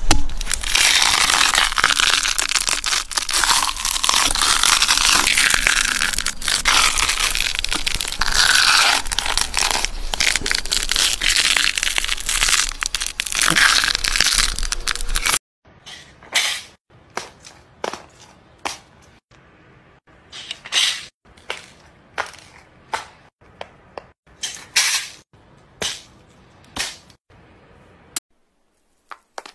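A power tool grinds into a wet tree stump for about fifteen seconds, a dense, steady noise as wood chips fly. It cuts off suddenly. A string of sharp, irregular cracks and snaps follows until shortly before the end.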